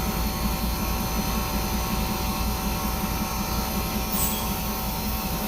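Commercial ice cream machine running with its refrigeration compressor and motors powered up: a steady low, pulsing hum with fixed tones above it. A brief high hiss about four seconds in.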